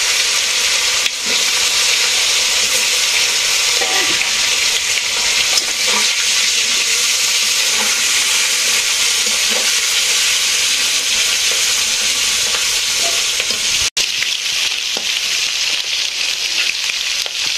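Fish pieces coated in turmeric and chili powder sizzling loudly as they fry in hot oil in a wok, with a spatula stirring them now and then.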